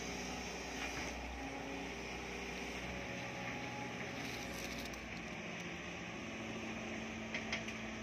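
Sumitomo crawler excavator's diesel engine running steadily as the machine travels on its tracks up a dirt slope, with a couple of sharp clicks near the end.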